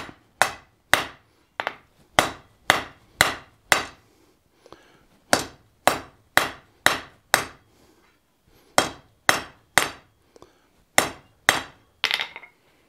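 Blacksmith's hand hammer striking a hot bar of 5/8-inch S7 tool steel on an anvil, drawing out a short point: runs of blows about two a second, each ringing briefly, with short pauses between the runs.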